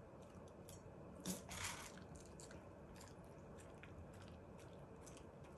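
Shiba Inu chewing food: faint, scattered crunching and clicks, with a slightly louder crunch about a second and a half in.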